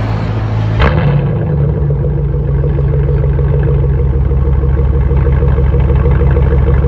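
A 2006 Impala SS's 5.3-litre V8 starting warm: it catches with a sharp burst about a second in, then settles into a steady, evenly pulsing idle.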